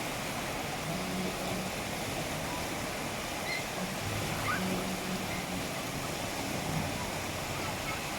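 Steady wash of water in an artificial-sea pool, an even rushing noise, with faint distant voices underneath.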